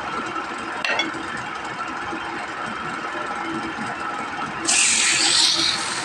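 Wood lathe motor running steadily with the turned wooden spindle spinning, one short click about a second in. Near the end a loud rushing hiss starts as sandpaper is pressed against the spinning wood.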